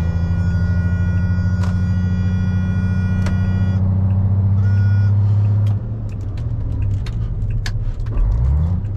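MAN lorry's diesel engine running steadily under load, with a high steady whine alongside that stops about four seconds in. About six seconds in the engine note drops and changes, as at a lift-off or gear change, then rises again near the end as the revs climb.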